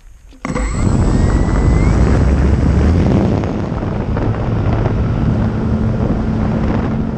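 FPV glider in flight: a loud, steady rush of wind and motor noise that starts suddenly about half a second in, with a brief rising whine near the start.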